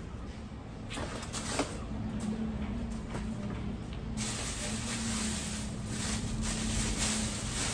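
Packaging being handled: a styrofoam insert lifted out of a cardboard box, then a plastic bag crinkling and rustling from about four seconds in as hands grip the wrapped cooker.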